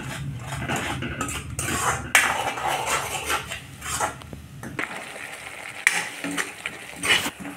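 Metal spoon scraping and stirring a thick onion-spice masala around a metal kadai in irregular strokes, with a light sizzle of the paste frying in oil.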